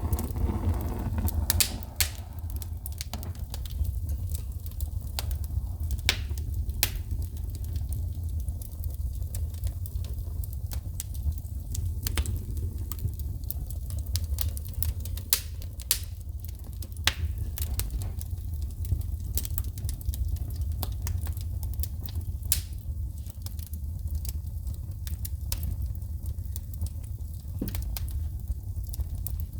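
Wood fire burning in a fireplace, with a steady low rumble and frequent sharp, irregular pops and crackles of sparks shooting from the burning wood.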